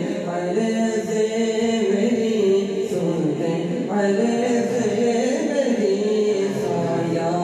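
A man sings a naat unaccompanied into a microphone, in long held notes that bend and slide in pitch.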